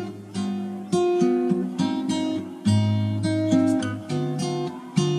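Background music: an acoustic guitar strumming chords, each chord ringing out and changing every second or so.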